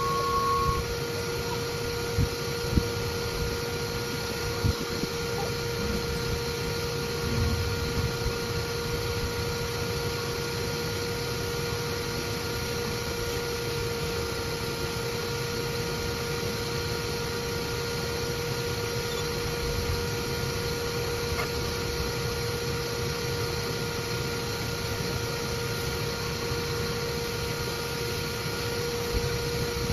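Bee vacuum running with a steady whine while its hose sucks bees and comb out of an electrical box. A few sharp knocks come in the first five seconds.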